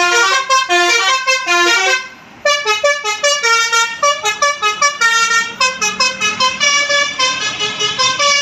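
Bus 'telolet basuri' musical air horn playing a quick melody of short, loud horn notes. It stops briefly about two seconds in, then starts another run of notes.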